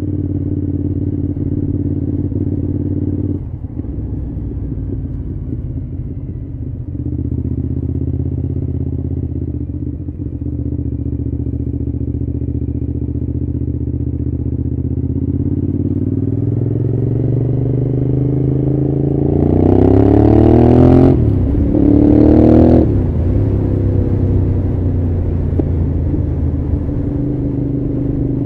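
Cagiva V-Raptor 1000's V-twin engine under way, running at a steady note at first. About two-thirds of the way through, the revs climb hard and it shifts up twice in quick succession, the pitch dropping at each change, before settling into a steady pull.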